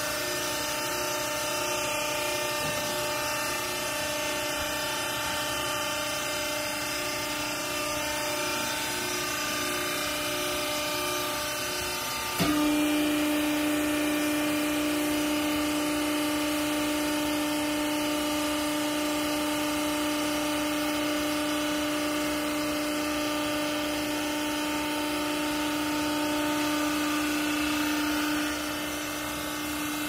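Hydraulic power pack of a vertical clothes baler running with a steady hum. About twelve seconds in it drops in pitch and grows louder as the pump comes under load driving the ram down to compress the bale, easing again near the end.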